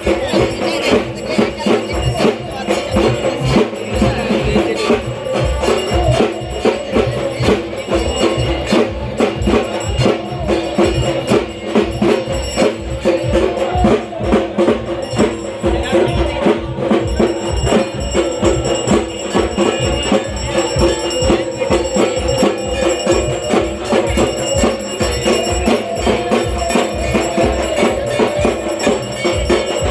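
Loud percussion-led festival music: a fast, steady drum beat under a sustained, held melody, running unbroken.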